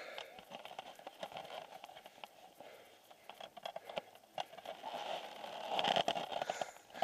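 Footsteps crunching on a gravel road with hard breathing, the breaths swelling loudest about six seconds in.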